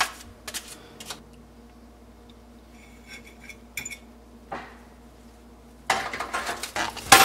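Metal utensils clinking and scraping against a foil-lined metal baking tray and a plate as baked chicken and vegetables are served: a few separate clacks at first, then a busy clatter near the end with one loud clack.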